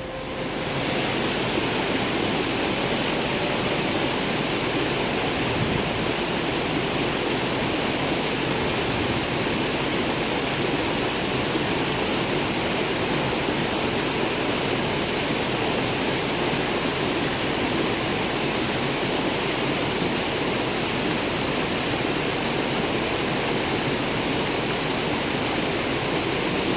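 Steady, even rushing of water, as of a stream or running water, starting about a second in and cutting off abruptly at the end.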